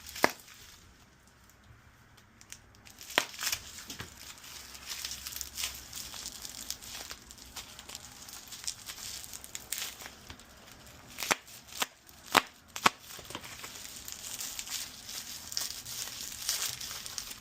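A tightly wrapped parcel being opened by hand: packaging crinkling and tearing, with a few sharp clicks and knocks about 3 seconds in and again around 11 to 13 seconds in.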